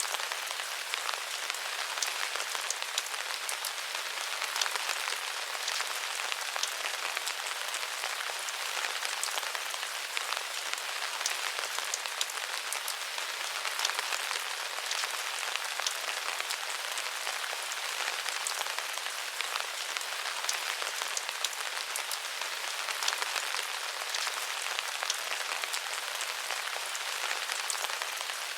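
Steady rain falling: an even hiss with many small drops ticking.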